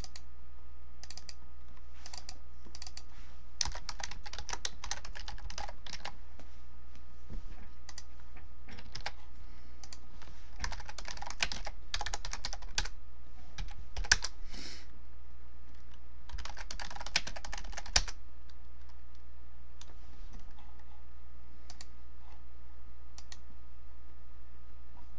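Typing on a computer keyboard: three runs of fast keystrokes separated by pauses, with scattered single key presses between.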